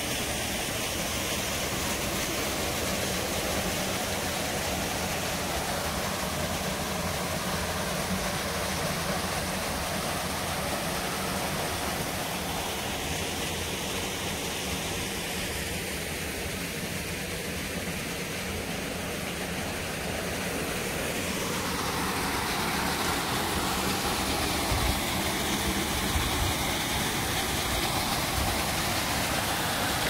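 Small waterfall splashing into a rock pool: a steady rush of falling water, growing a little louder after about twenty seconds.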